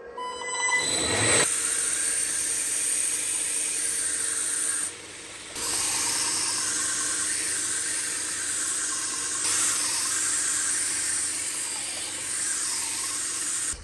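A small electric power tool spins up with a quickly rising whine, then runs steadily with a loud hissing, grinding noise of abrasive work on the steel cleaver blade. The noise drops briefly about five seconds in and then resumes.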